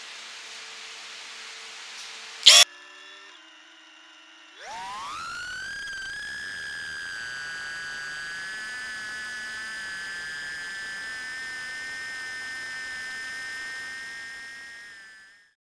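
Betafpv 85X HD brushless micro quad: after a sharp click, its motors idle with a low hum, then spool up about five seconds in to a high, steady whine that holds as it flies, fading out near the end.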